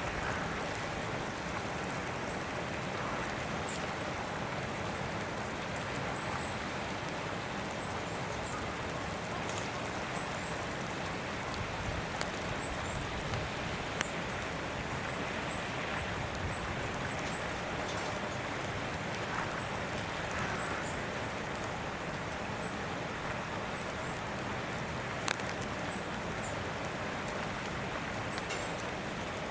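Steady outdoor background hiss with scattered light ticks and a few faint, short high chirps.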